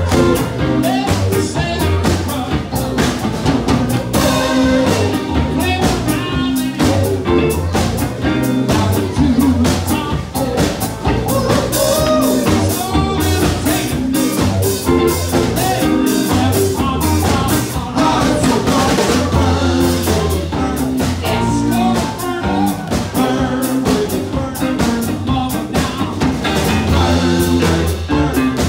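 A live band playing: electric guitar and drum kit with singing over a steady beat and a strong bass line.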